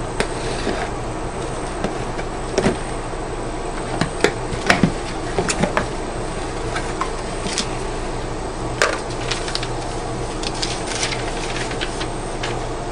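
Hands opening a mailed package: scattered rustles, taps and knocks of cardboard and paper, the loudest cluster between about 2.5 and 5 seconds in and another sharp knock near 9 seconds, over a steady background hum.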